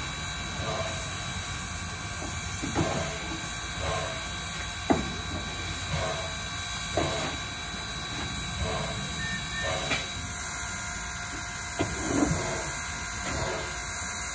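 1907 Baldwin 0-6-0 steam locomotive standing with a steady hiss of steam. A coal shovel scrapes and clanks in the tender's coal about once a second, at an uneven pace.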